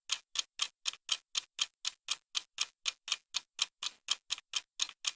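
Clock-ticking sound effect, quick even ticks at about four a second, marking the dye's processing time passing.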